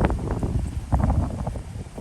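Wind buffeting the microphone: irregular gusty rumbling, strongest at the low end.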